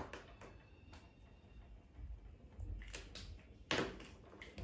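Felt-tip markers scratching faintly on paper as two people colour. A few soft clicks and knocks of markers and caps come through, the loudest a little under four seconds in.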